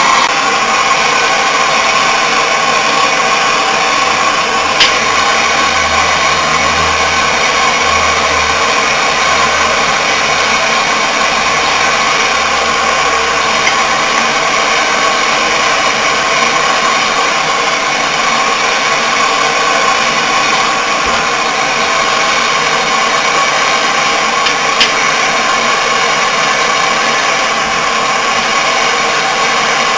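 Propane torch burning with a steady hiss, heating the compressor housing so it expands to release a tight-fitted stator. Two sharp metallic clicks about twenty seconds apart.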